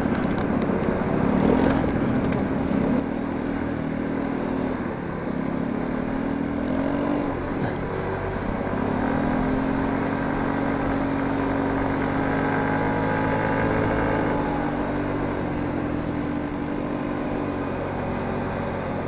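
Motor scooter engine running while riding, its note shifting up and down with speed, under steady wind noise.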